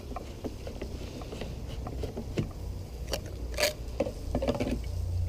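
Plastic gasoline can being handled as its flexible spout is twisted off: scattered clicks and knocks of plastic, the loudest about two thirds of the way through, over a low steady rumble.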